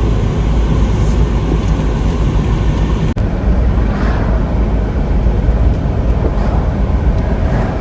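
Steady low road and engine rumble inside a moving car's cabin, with a brief dropout about three seconds in.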